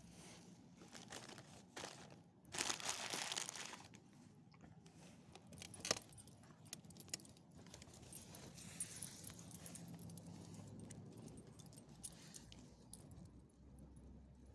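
Small metal pieces jingling and clinking, loudest for about a second and a half around three seconds in, with a single sharp click near the middle and faint ticking throughout.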